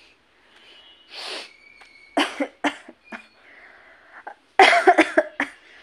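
A woman with a head cold coughing into her hand: a few short coughs, then a louder fit of quick coughs about four and a half seconds in.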